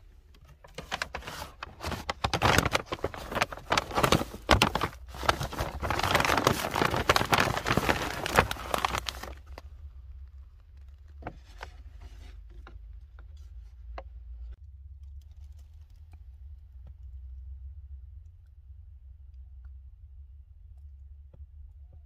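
Paper shopping bag and a bag of coffee being handled, rustling and crinkling for about eight seconds. Then it goes quieter, leaving a low steady hum and a few small clicks.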